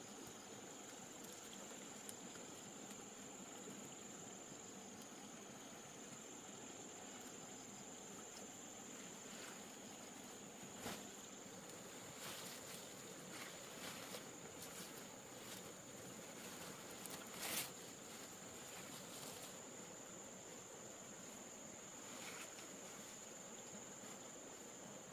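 Insects trilling in one steady high note, with a few scattered knocks and rustles, the loudest about two-thirds of the way through.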